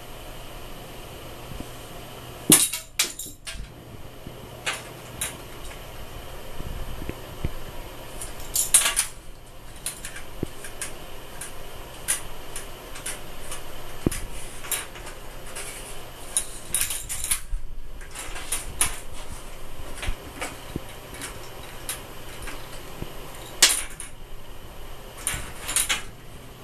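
A small hard plastic toy clattering and skittering across the floor of an empty bathtub as a cat bats it with its paws, in bursts of quick clicks and rattles a few seconds apart. The loudest knocks come about two and a half seconds in and again near the end.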